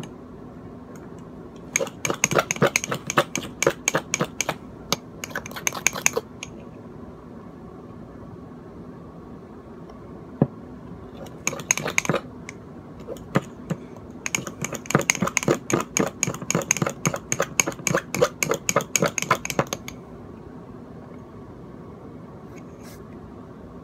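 Metal fork rapidly whisking dalgona coffee in a ceramic mug, clinking fast against the mug's sides in three bursts, the last and longest near the end.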